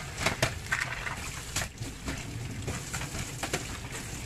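Tap water running into a stainless steel sink while halaan clams are washed by hand, their shells clicking against each other and the steel a few times.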